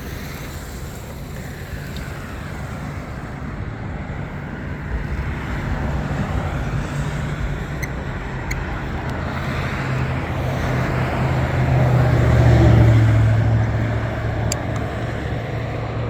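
Road traffic going by, with a vehicle's engine rumble and tyre noise building to pass close about twelve seconds in, then fading.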